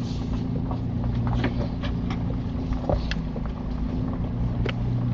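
Vehicle engine running steadily at low speed while crawling an off-road trail, with scattered clicks and knocks over the top.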